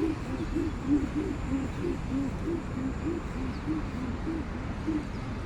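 A bird calling in a steady run of short, low hooting notes, about three a second, alternating between a higher and a lower pitch.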